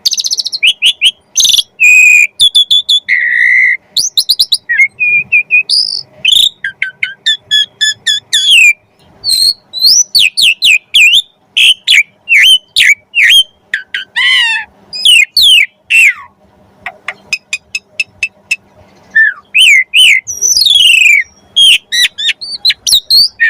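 Pied starling (jalak suren) singing at full voice: a rapid, varied string of loud whistles, sharp chirps, trills and fast repeated note series, many of them mimicked phrases from other birds, with only brief pauses between bursts.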